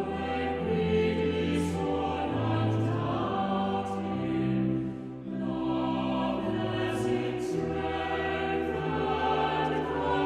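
Choir singing a slow hymn in several parts, with long held chords that change about once a second.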